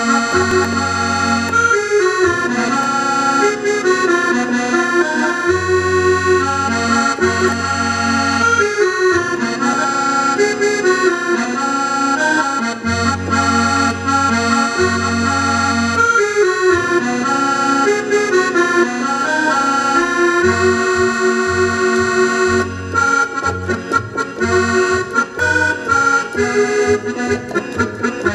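Roland digital piano accordion playing a tune: a melody over held bass notes and chords, the bass turning into short repeated beats about two-thirds of the way through.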